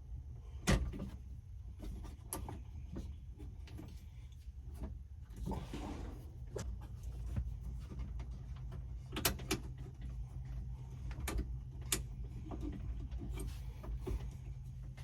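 Scattered sharp clicks and knocks of plastic and metal parts being handled behind a truck dashboard as heater/AC control cables and tabs are reattached to the control panel, with a brief rustle about five and a half seconds in, over a steady low hum.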